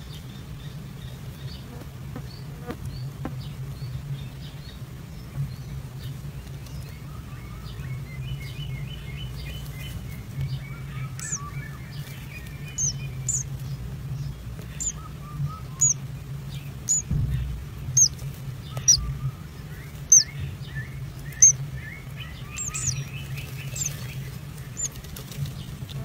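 Bird chirping: a patch of soft twittering about a third of the way in, then a run of short, high, falling chirps about once a second, over a steady low hum.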